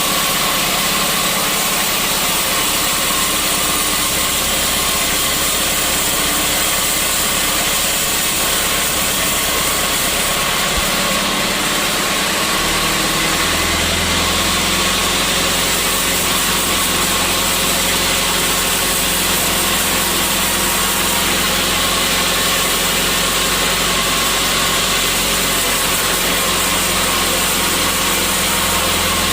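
Sawmill machinery running steadily under a loud, even noise. About halfway through, a deeper steady hum sets in and holds.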